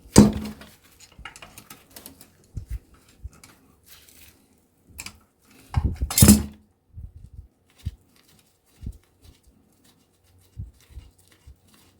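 Metal hand tools clinking and knocking on the bolts and casing of a refrigerator compressor being taken apart, in scattered small clicks. There is a louder clank right at the start and a longer clatter about six seconds in.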